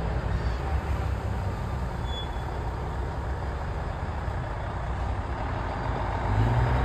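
A heavy vehicle engine running with a steady low rumble. The rumble grows louder near the end.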